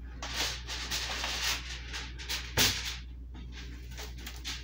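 Plastic cling film pulled off a large roll and stretched over a foil-covered baking pan, crinkling and rustling, with one sharp click about two and a half seconds in.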